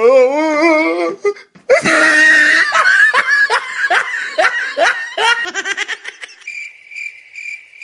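Hearty laughter: a wavering drawn-out vocal opening, then a run of rhythmic ha-ha pulses. Near the end it gives way to a faint high tone repeating in short pulses.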